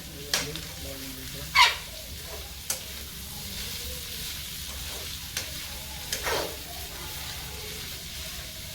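Chopped vegetables sizzling steadily in hot oil in a pan, with a spoon scraping against the pan a few times as they are stirred; the loudest scrape is about one and a half seconds in.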